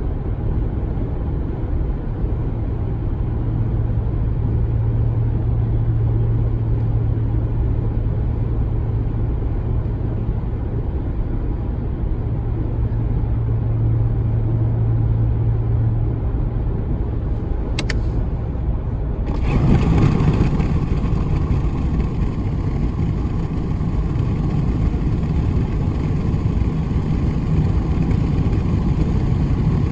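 Inside the cab of a 2019 Ram 1500 cruising in 8th gear, a steady low drone hums over the road rumble: a recurring fault that persists after the dealer replaced the truck's sound amplifier. A click comes about two-thirds of the way through, and then the rolled-down window lets in loud wind and road noise.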